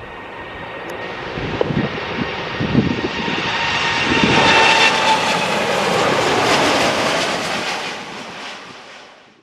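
Twin-engine jet airliner taking off: the engine roar builds, is loudest about halfway through, then fades away near the end as it climbs off.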